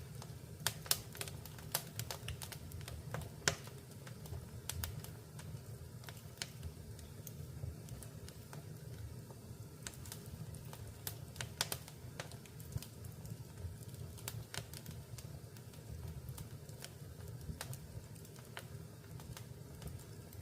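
Wood fire burning in a fireplace: irregular sharp crackles and pops over a low steady rumble of the flames, with the loudest pop about three and a half seconds in.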